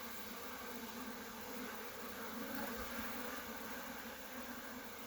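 A colony of honeybees buzzing in a steady hum around an opened hive, stirred up by an inspection as a frame is lifted out.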